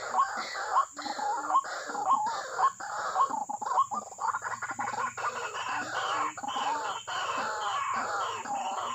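White-breasted waterhens calling: rapid, repeated harsh croaking notes, several a second, that thicken into a denser overlapping chatter about halfway through.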